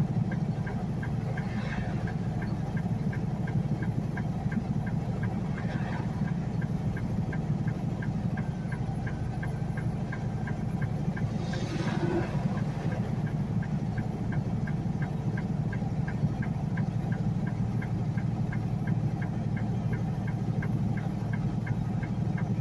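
Inside a semi truck's cab: the engine's steady drone with an even ticking from the turn-signal flasher, about two ticks a second, as the truck signals for the exit.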